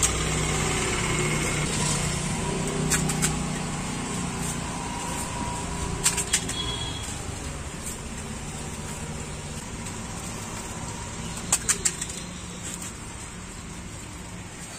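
Street food vendor's hands preparing pani puri: soft rustling and a few light clicks as puris are filled and set on a paper plate on a steel tray, and a hand reaches into a plastic bag of puris. A steady low hum sits underneath, and a short cluster of sharp clicks comes near the end.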